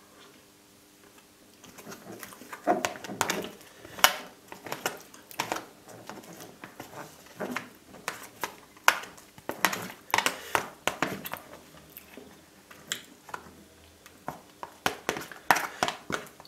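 Thin clear plastic dessert tub crackling and clicking in sharp, irregular bursts as it is gripped, flexed and turned in the hands.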